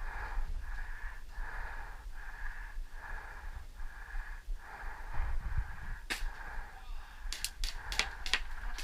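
Fast, hard breathing from the player, rhythmic at about two breaths a second. There is a single sharp airsoft-gun shot about six seconds in and a quick string of shots near the end.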